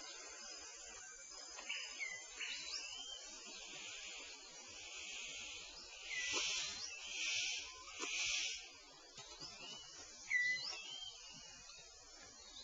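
Rainforest ambience with birds calling: short whistled notes, some rising and some dropping, scattered through, over a steady high hiss, with three short bursts of hissing noise about six, seven and eight seconds in.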